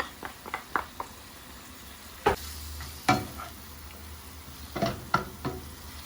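Liver and onion frying in butter in a pan, a steady sizzle, with a utensil stirring and knocking against the pan a few times, mostly in the second half.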